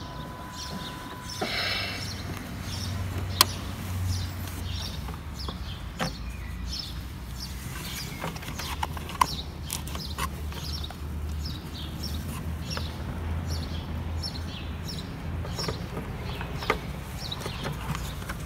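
A 1/14 scale model truck's DIY ESP32 sound controller idling its simulated truck diesel engine through small speakers, a low steady rumble, after a steady electronic beep in the first second or so. A few sharp clicks come from handling the electronics, and birds chirp in the background.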